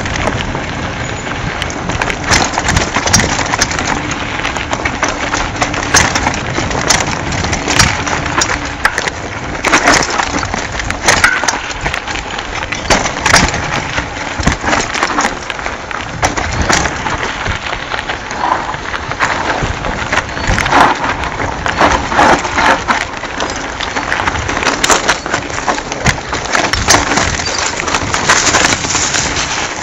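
Mountain bike riding fast down a rough dirt trail: continuous crunch of tyres on gravel and rattle of the bike shaking over rocks and roots, with frequent sharp knocks.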